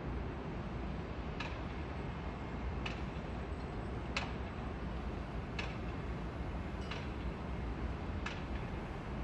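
A steady low rumble with a single sharp click repeating about every second and a half, evenly spaced like a slow tick.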